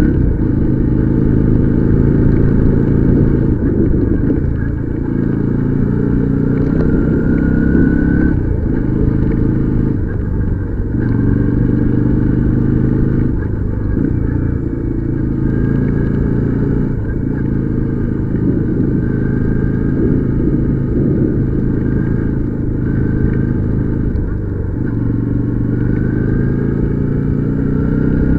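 Motorcycle engine heard while riding, its pitch repeatedly rising and then dropping every two seconds or so as it speeds up and backs off, over a steady low rumble.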